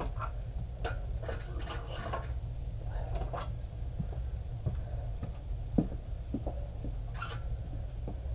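Barbell and iron weight plates clinking and knocking lightly a few times, with one firmer knock about six seconds in, over a steady low hum.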